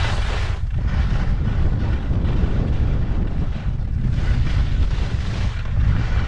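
Wind rushing over a GoPro's microphone during a ski descent: a steady low rumble, with the hiss of skis on snow swelling and fading with each turn.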